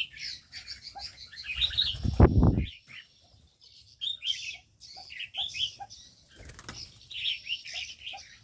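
Aviary birds chirping busily with many short, high calls, and a brief burst of wing flapping about two seconds in.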